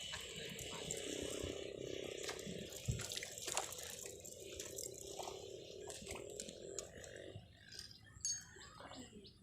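Water splashing and dripping faintly, with scattered light clicks and a faint steady hum that fades out about seven and a half seconds in.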